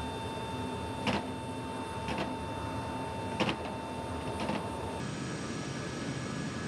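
Steady mechanical hum with a high constant whine, broken by four short knocks about a second apart; about three-quarters of the way in it switches abruptly to a different steady drone.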